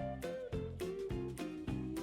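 Background music with a steady beat, a bass line and a melody that slides between notes.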